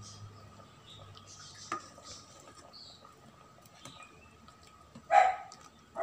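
A ladle stirring chicken curry in an aluminium rice cooker pot, with light scrapes and taps against the pot. There is one short loud sound about five seconds in.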